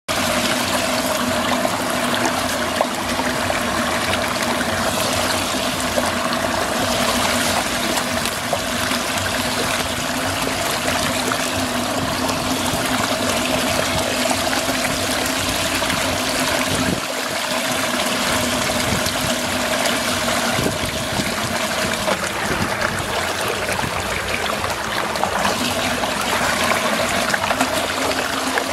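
Water swirling and draining down the open hole of a whirlpool vortex: a steady rush of water, with a faint steady hum underneath.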